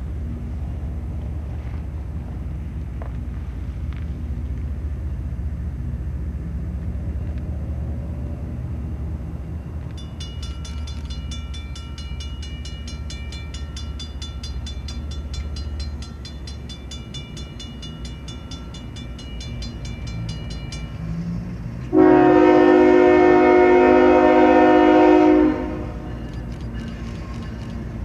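Union Pacific GE C45ACCTE (ES44AC) diesel locomotive approaching at the head of an intermodal train, its engines rumbling low and steady. About ten seconds in, a bell starts ringing in rapid strokes for roughly ten seconds. Then the locomotive's air horn sounds one long blast of about three and a half seconds, the loudest sound.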